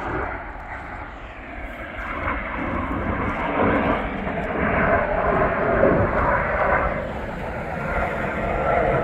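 Fixed-wing aircraft engine noise as a plane flies past, a steady rush that grows louder over the first half and eases slightly toward the end.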